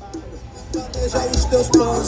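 Music played loud through a car's aftermarket sound system. It comes in strongly about a second in, with heavy bass hits under a melody.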